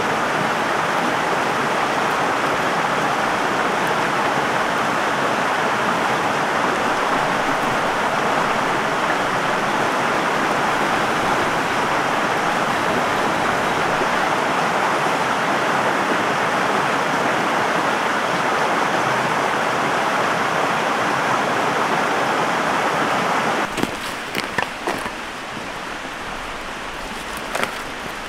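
A stream rushing steadily over rocks. About 24 seconds in, the rush drops noticeably quieter, and a few sharp clicks follow.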